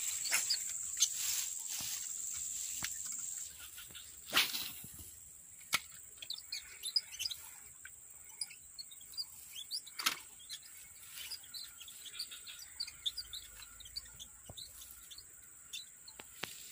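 Small birds chirping in many quick, short calls, over a steady high-pitched insect drone that stops about three and a half seconds in. A few sharp clicks stand out.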